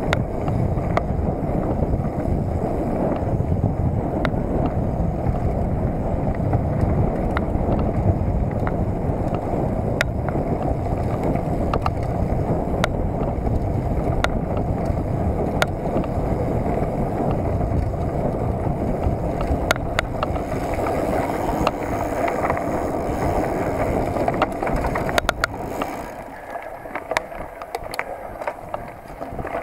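Mountain bike ridden fast along a dirt forest trail: a steady rush of wind on the microphone and tyre noise, with scattered sharp clicks and rattles from the bike over bumps. It goes quieter about four seconds from the end as the bike slows.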